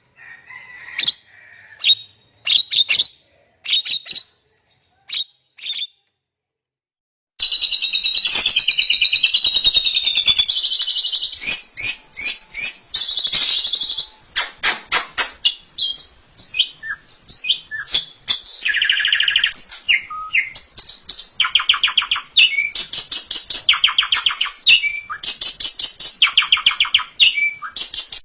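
Javan myna (jalak kebo) calling. First come sparse short chirps, then after a brief silence a dense run of whistles, chatter and harsh rattling trills, the trills recurring every couple of seconds.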